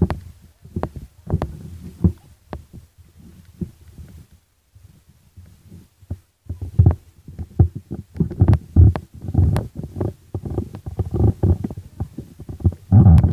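Irregular low rumbling and thumping buffeting the microphone, with a few sharp clicks, quieter for a moment about halfway through and then denser.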